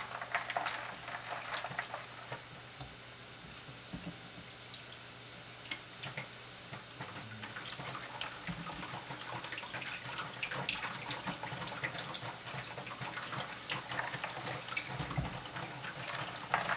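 Water splashing and trickling in a sink as Japanese sea bass fillets are dipped into iced salt water, with many small irregular splashes throughout.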